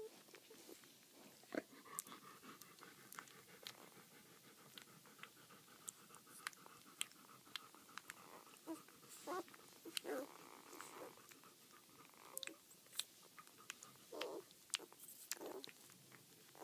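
Newborn German Shepherd puppies suckling on their mother: faint, irregular wet clicks and smacks.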